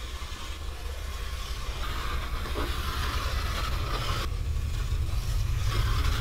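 Low rumbling drone swelling steadily louder, a horror-film sound-design build-up.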